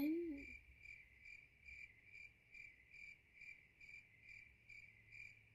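Faint crickets chirping in an even run, about two to three chirps a second: the stock 'crickets' sound effect for an awkward silence.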